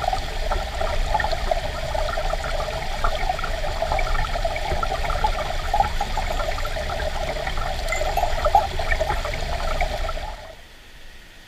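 Mountain stream water running steadily, cutting off abruptly near the end.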